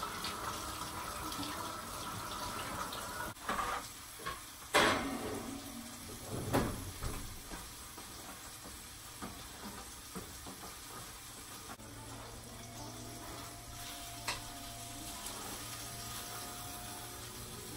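Kitchen sink tap running steadily, shut off about three seconds in, followed by a few sharp knocks, the loudest about five seconds in.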